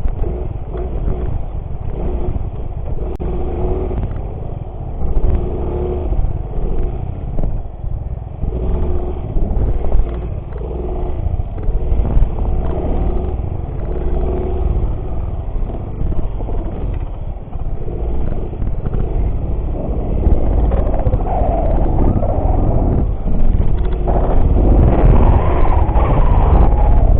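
Small single-cylinder motorcycle engine running while being ridden off-road, its note rising and falling with the throttle over a heavy low rumble, getting louder near the end.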